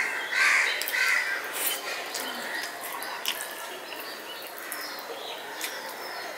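A crow cawing three times in quick succession in the first second, the loudest sound here. Afterwards come scattered small clicks and squelches of a hand mixing rice and greens on a steel plate.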